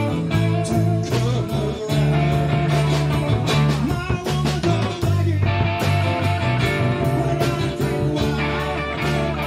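Live band music: electric guitar, archtop acoustic guitar, electric bass and drum kit playing a song together with a steady beat.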